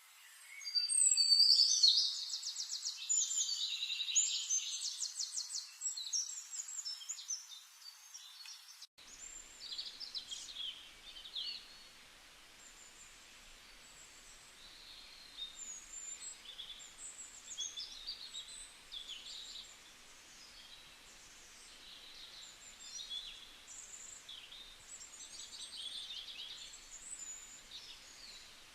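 Forest birds singing: a loud, fast trilling song for the first nine seconds or so, then an abrupt cut to a quieter chorus of scattered chirps and short calls over a faint background hiss.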